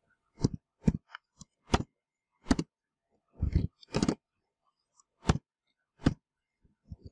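Computer keyboard keystrokes: about a dozen irregularly spaced clacks of typing, with short pauses between them.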